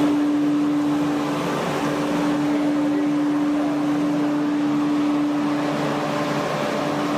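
Sawmill machine's motor running steadily at full speed after starting up, a constant hum with no change in load.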